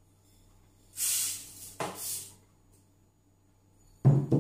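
Dry rice poured into the stainless steel bowl of a Monsieur Cuisine Connect kitchen robot: a rushing hiss of grains in two pours. Near the end, two sharp knocks as the empty glass bowl is set down on the table.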